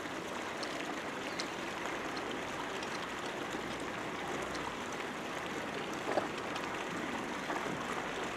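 Steady outdoor background noise of a marina, with a few faint clicks and a small knock about six seconds in.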